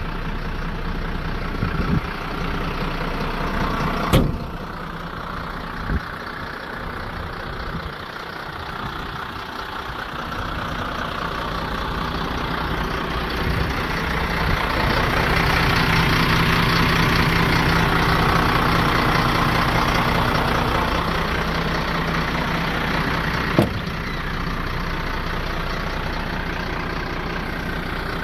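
MAN 18.220 4x4 fire truck's diesel engine idling steadily, louder for several seconds in the middle. Two sharp knocks, about four seconds in and again near the end.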